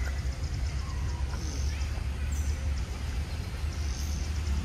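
Outdoor forest ambience: a steady low rumble, with faint high chirps coming back every second or two.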